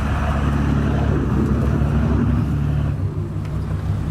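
Boat engine running steadily, with a rushing hiss of wind and water over it.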